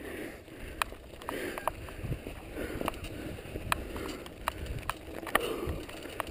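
Mountain bike rolling over snow and loose gravel: tyres crunching, with sharp clicks and rattles from the bike and stones about every second.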